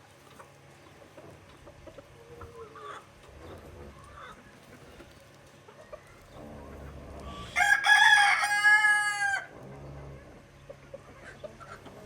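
A rooster crows once, loudly, about eight seconds in, the call lasting under two seconds. Chickens cluck softly around it.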